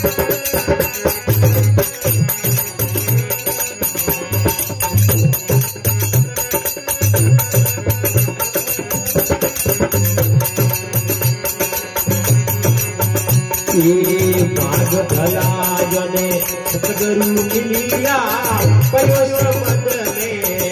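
Harmonium, dholak and small hand cymbals playing a folk devotional song: steady held harmonium tones, regular dholak strokes and a constant jingling cymbal rhythm. A voice comes in singing in the latter part.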